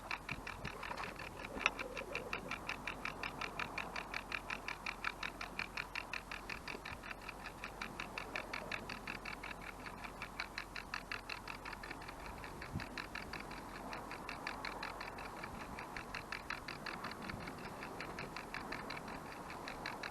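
Clockwork mechanism of a wind-up IKEA kitchen timer ticking steadily, about four to five ticks a second, as it turns slowly as a panorama mount.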